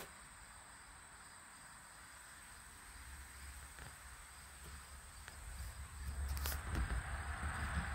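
Steady high-pitched trilling of crickets in late-summer grass. A low rumble builds up over the last two seconds.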